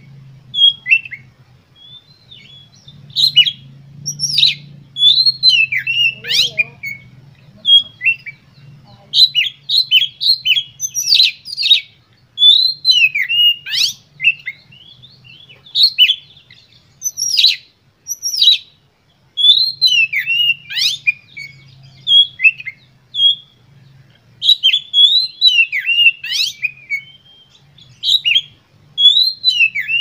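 Oriental magpie-robin singing energetically: rapid bursts of high whistled notes and sharp chirps that slide steeply in pitch, each burst a second or so long with short pauses between.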